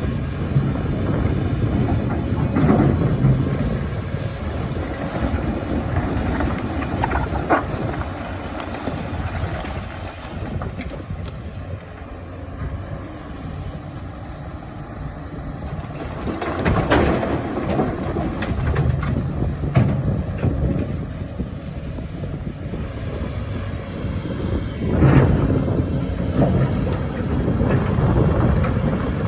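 Excavator's diesel engine running, its rumble swelling twice under load as it digs rock, with occasional sharp knocks and scraping from the bucket on rock.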